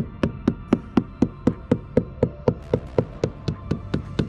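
Steady tapping, about four taps a second, on a sailboat's fibreglass deck around the main shroud chain plate: a tap test for delamination, where a dull-sounding tap marks delaminated, likely water-soaked laminate, which the tapper finds here.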